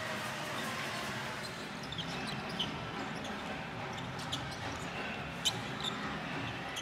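Steady crowd noise in a basketball arena during live play. From about two seconds in come a few sharp squeaks and knocks of sneakers and a dribbled ball on the court.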